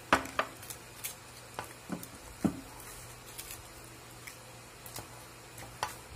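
A metal spoon and plastic fork tapping and scraping in a foil-lined food tray while rice is scooped up: a cluster of sharp clicks in the first two and a half seconds and one more near the end.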